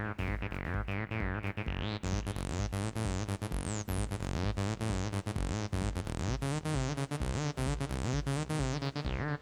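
Electronic beat from a Roland T-8 beat machine: a steady drum-machine pattern with a synth bass line underneath, its filter sweeping on the notes.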